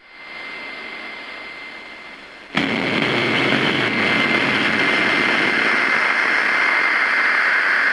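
A steady rushing noise with a thin, high, steady whistle running through it. It fades in at the start and jumps suddenly much louder about two and a half seconds in.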